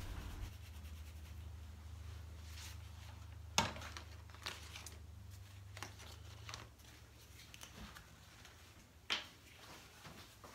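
Faint scratchy rubbing of a paintbrush working wet paint on paper, with a few light knocks, the sharpest about three and a half seconds in and another near nine seconds. A low hum runs underneath and stops about two-thirds of the way through.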